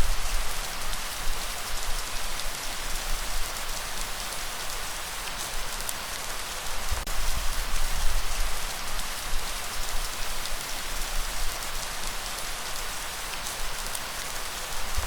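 Light rain falling steadily, an even hiss with scattered ticks of single drops, under a low breeze rumble that swells and eases, strongest about halfway through.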